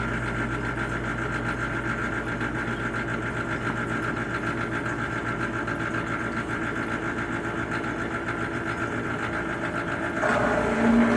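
Dishwasher running mid-cycle: a steady motor-and-pump hum with a low rumble. About ten seconds in the sound steps up louder, with a new, higher hum coming in.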